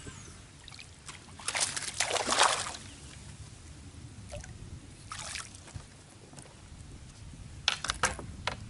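Water splashing beside a boat as a hooked bass thrashes at the surface. The loudest splashing comes about two seconds in, a shorter splash follows about five seconds in, and a few sharp clicks come near the end.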